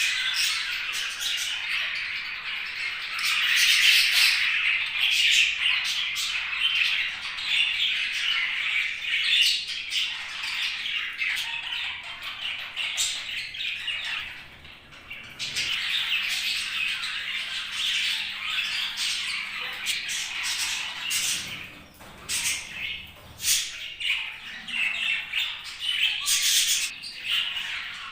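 Budgerigars chattering and warbling continuously, with squawks and short chirps mixed in, easing off briefly about halfway through before picking up again.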